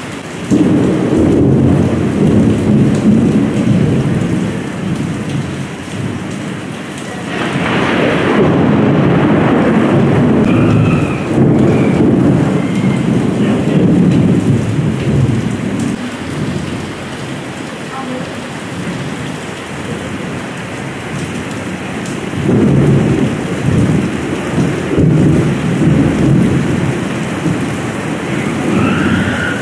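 Heavy rain pouring down, with a loud low rumble that swells and fades, and a louder rush of noise about seven seconds in.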